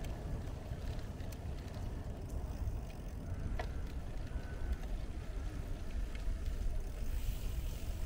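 Bicycle riding along a paved path: a steady low rumble of wind on the moving microphone and tyres rolling over the pavement, with a faint click about halfway through.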